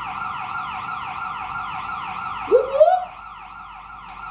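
Ambulance siren in a rapid yelp, its pitch sweeping up and down about four times a second. About halfway through, a short rising whoop is the loudest moment, and the siren is a little quieter after it.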